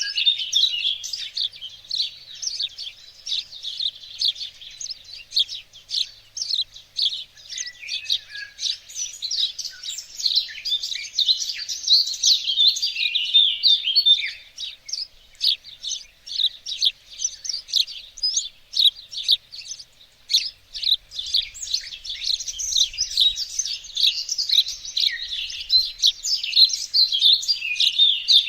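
Songbirds chirping and singing together, a dense unbroken chorus of quick high chirps and trills overlapping throughout.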